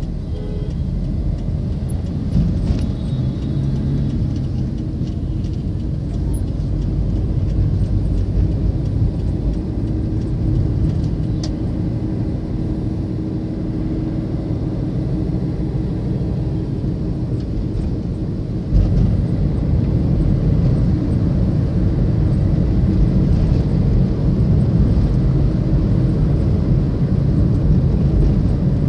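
Steady low rumble of a car driving along a city road, engine and tyre noise heard from inside the car, getting louder about two-thirds of the way through.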